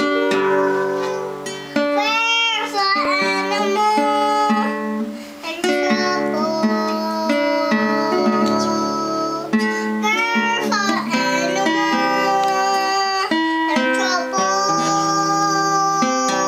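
Classical acoustic guitar strummed and picked in a slow blues, with a toddler singing over it in high, sliding notes.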